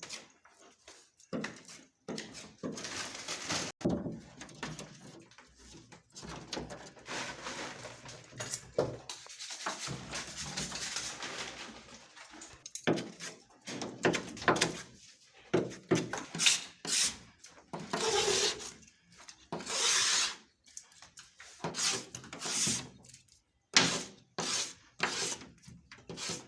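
Irregular scraping and rubbing from work on plaster of Paris ceiling panels, with a couple of sharp knocks.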